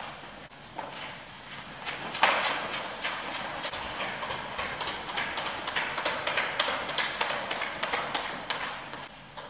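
Wet string mop swishing and slapping across a smooth hard floor, mixed with shoe steps. It gets louder about two seconds in, a quick run of clicks and knocks over a wet scrubbing hiss, and eases off near the end.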